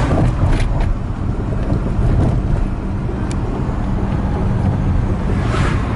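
Road vehicle running along the road, heard from inside the cabin: a steady low rumble of engine and tyres with a faint steady hum.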